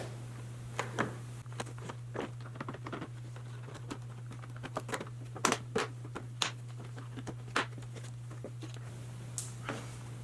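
Irregular clicks and knocks of hard plastic parts being handled and fitted, over a steady low hum.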